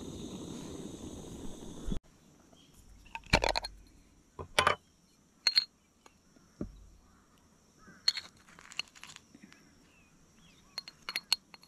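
Single gas camping burner hissing steadily under a mug for about two seconds, then cutting off abruptly. After that a metal spoon clinks and scrapes against a small glass jar and an enamel mug as spice powder is spooned out, a few sharp clinks at a time.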